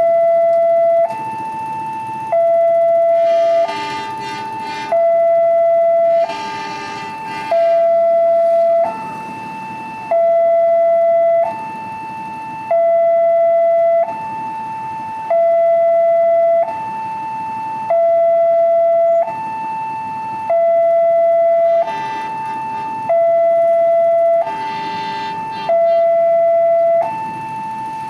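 Railway level-crossing alarm sounding an electronic two-tone warning. It alternates steadily between a lower and a louder higher tone, each held about a second and a quarter. It signals that the barrier is down and a train is approaching.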